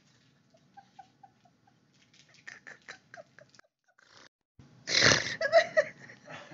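A woman laughing hard but holding it back behind a hand over her mouth: quick short gasps of laughter, a loud burst of laughing about five seconds in, then more gasps. The laughing hurts her fresh surgical incision.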